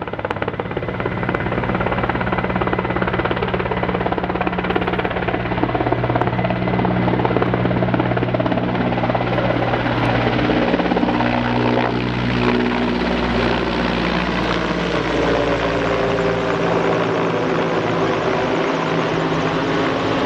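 Firefighting helicopter flying overhead with a bucket slung beneath it: a steady rapid rotor thrum and turbine drone. About twelve seconds in its pitch bends and shifts as it passes by.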